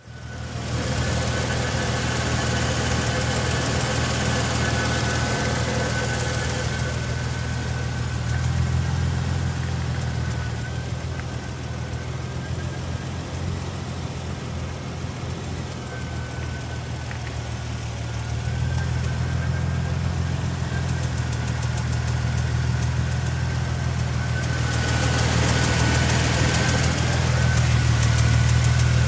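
Supercharged 2015 Toyota Tacoma engine running steadily with a ticking noise, over a thin high whine that wavers slightly in pitch. A louder hiss is present during the first few seconds and again near the end.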